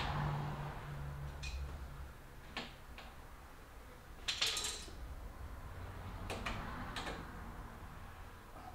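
A few light clicks and taps a second or so apart, with a longer rattling cluster about four seconds in: hands tucking a wiring cable in behind a motorcycle's frame and side panel and refitting a bolt.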